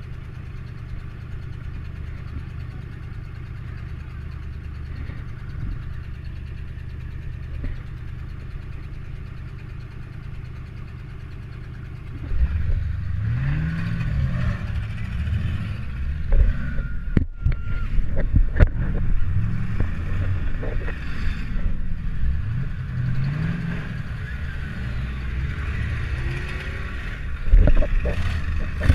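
Demolition derby car's engine idling steadily, then revving hard from about twelve seconds in, its pitch rising and falling several times, with a few sharp bangs of impacts.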